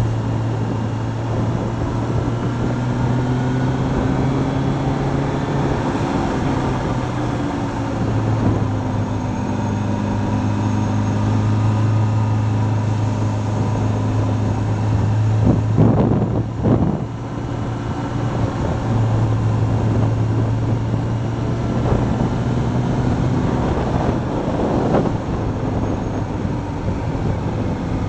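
Motorcycle engine running at a steady cruise through bends, its pitch shifting a little with the throttle and briefly dipping about two-thirds of the way through, with wind rushing over the microphone.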